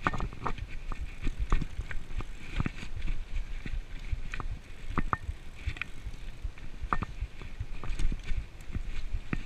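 Mountain bike rolling fast over a rough dirt forest trail: a steady low rumble from the tyres and wind on the microphone, with frequent irregular sharp clacks and knocks as the chain and frame rattle over bumps.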